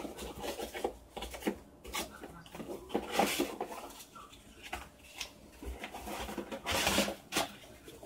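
Crumpled tissue paper rustling and crinkling as it is pulled out of a small cardboard box, with the cardboard flaps scraping and tapping; the rustling is loudest about three seconds in and again near the end.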